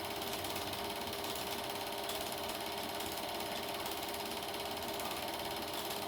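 Super 8 film projector running: a steady, fast mechanical clatter from the film-advance mechanism, with a constant motor hum under it.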